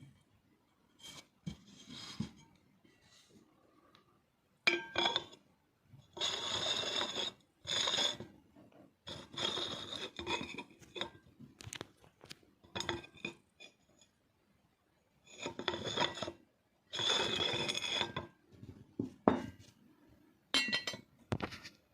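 Porcelain teaware being handled: several scraping, rubbing strokes of a second or two each, with light clinks and knocks of china between them.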